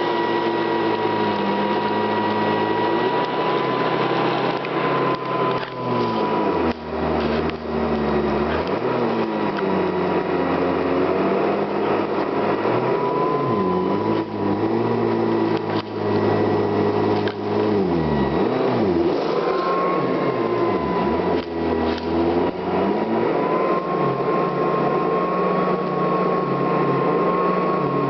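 Hoover Convertible upright vacuum cleaner running with its CWP brush roll: a steady motor whine that drifts slightly up and down in pitch, over a shifting low rumble, with scattered short clicks.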